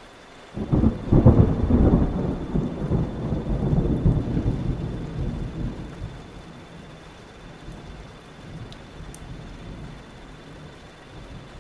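A thunderclap breaks about half a second in with a loud crackling rumble, then rolls away over several seconds. Steady rain falls throughout.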